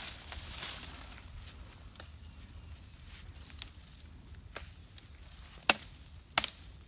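Dry brushwood rustling and crackling as it is pulled and dragged by hand, with a few sharp twig snaps in the second half, the loudest near the end.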